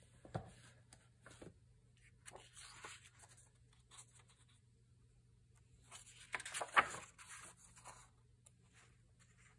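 Large paper pages of a hardcover book being turned by hand: a light knock about half a second in, then two spells of paper rustle and flap, the louder one around six to eight seconds in.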